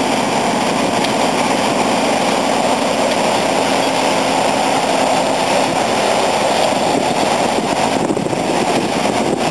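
Diesel engines of heavy earthmoving machines, a backhoe loader and a crawler bulldozer, running steadily.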